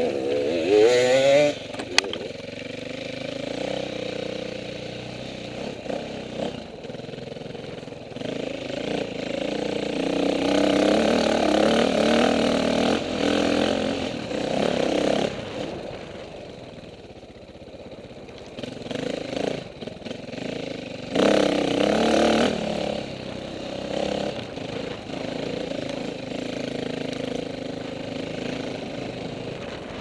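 KTM 450 dirt bike's single-cylinder four-stroke engine being ridden off-road, revving up and down with the throttle. It climbs in pitch in a loud burst about a second in, eases off for a stretch past the middle, and opens up loudly again around two-thirds of the way through.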